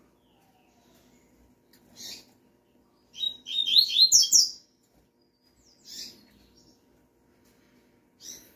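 Double-collared seedeaters (coleiros): short single chirps about every four seconds, the female's call, and between them one louder, fast phrase of high song notes lasting about a second and a half, the male singing in answer.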